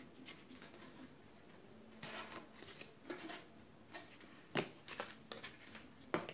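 Small scissors snipping through a cardboard toilet-paper roll, faint scattered snips and cardboard rustles, with a louder knock right at the end.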